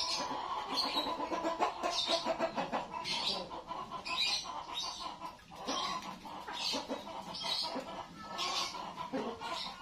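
Hens cackling and clucking over and over, a noisy run of repeated calls about every half second: the cackle hens make around laying an egg.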